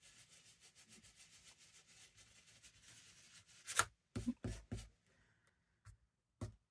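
Quick, even rubbing strokes of ink being worked through a stencil onto paper. About four seconds in, a sharp click and three quick knocks follow, then two lighter taps.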